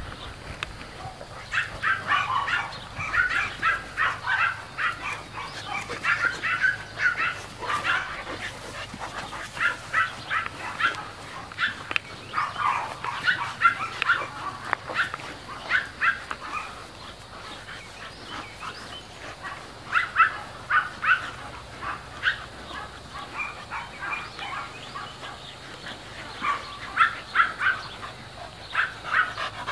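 English mastiff and Cane Corso puppies play-fighting, with clusters of short, high barks and yips, and quieter stretches in between.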